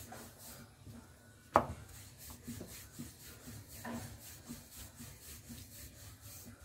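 Wooden rolling pin rolling out stuffed paratha dough on a round board: soft rubbing with light knocks, and one sharp knock about a second and a half in.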